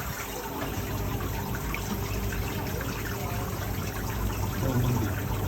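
Ice machine running: water trickling and splashing over a steady low hum of its pump.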